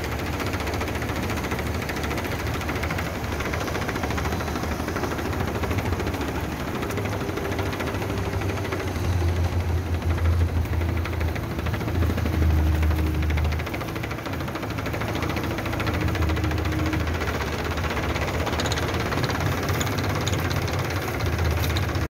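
Seaweed-cleaning workboat's engine running steadily with a deep hum, growing louder for a few seconds around the middle.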